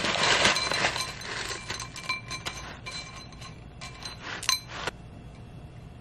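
Granola pouring from a plastic pouch into a ceramic bowl, the clusters rattling against the bowl, then scattered small clicks as the pieces are pushed into place by hand. There is one sharper clink about four and a half seconds in, and it goes quieter after about five seconds.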